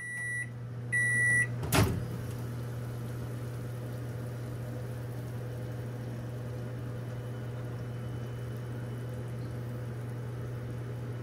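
Microwave oven: two keypad beeps, a click as it starts, then the oven running with a steady low hum.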